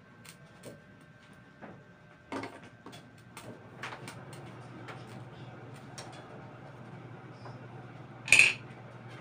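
Empty wok heating on an electric stovetop: a low steady hum with faint scattered ticks and clicks. One short, sharp, bright clink stands out about eight seconds in.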